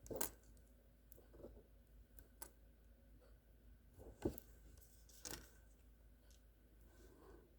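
Faint scattered clicks and taps of small packaging being handled and opened, with sharper taps near the start, about four seconds in and again a second later.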